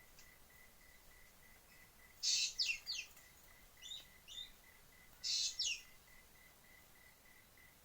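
A bird calling in three bursts of quick, descending high notes: the first about two seconds in, a shorter pair near four seconds, and another near five and a half. A faint steady high pulsing tone runs behind.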